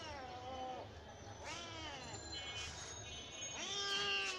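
Domestic cat meowing three times. Each meow is a drawn-out call that rises and then falls in pitch, and the last one, near the end, is the loudest.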